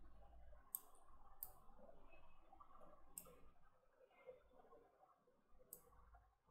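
Four faint, sharp computer mouse clicks, spaced irregularly, over near-silent room tone.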